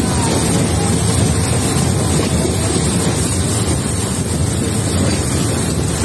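Steady, loud rushing noise heard from a moving train's window: the train running along the track and wind on the microphone, with the roar of the waterfall mixed in.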